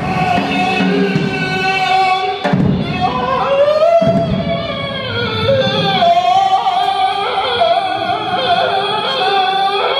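A man's amplified voice singing long, high, wavering held notes into a microphone, with drums played behind him.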